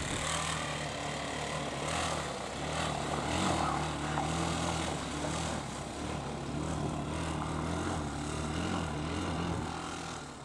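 Quad ATV engine running as it is ridden through mud, its engine note rising and falling with the throttle.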